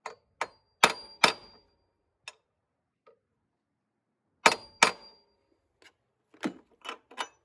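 Claw hammer striking a socket set on a new pillow ball bearing, driving it evenly into an Air Lift Performance top mount: sharp metal-on-metal strikes with a short ring. The loudest come as two pairs, about a second in and near five seconds, with lighter knocks in between and several more near the end.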